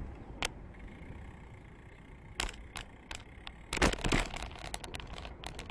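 Bicycle rolling over rough pavement: a low rumble with irregular sharp clicks and knocks from the bike and its handlebar-mounted camera, the loudest cluster about four seconds in.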